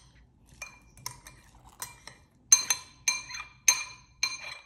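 A metal spoon stirring puffed-rice bhel puri mix in a glass bowl, clinking against the glass about ten times, each clink ringing briefly; the clinks are light at first and louder from about halfway through.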